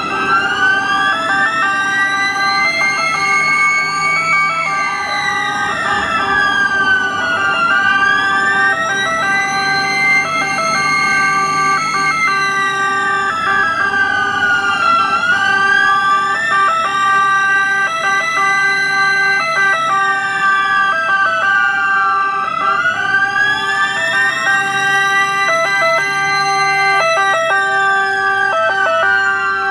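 Several ambulance sirens sounding at once: a slow wail that rises and falls about every seven to eight seconds, over the steady, regularly pulsing tones of other sirens. A second wail joins in near the end.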